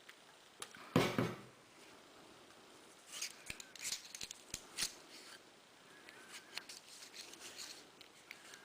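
Pistol barrel being cleaned with a cleaning rod and solvent patch: scattered clicks, scrapes and rubbing as the patch is worked through, with a louder rustle about a second in.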